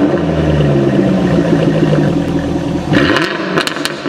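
Lamborghini V10 engine revving. It holds high revs steadily, then dips and climbs again in a quick throttle blip about three seconds in.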